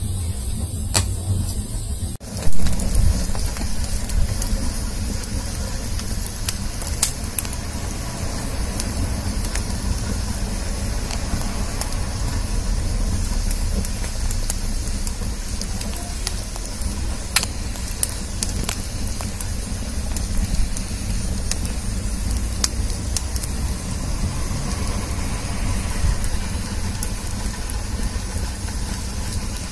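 Wood fire of split kindling and logs burning: scattered sharp crackles and pops over a low, steady rumble.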